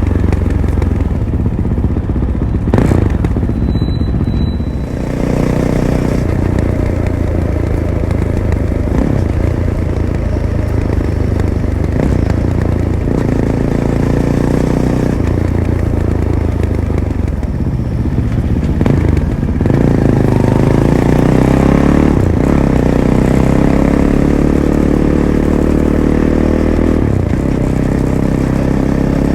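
Fantic Caballero 500's single-cylinder engine through its stock Arrow exhaust, running under varying throttle off-road. In the last third the engine note climbs steadily, broken by short dips where the rider changes gear.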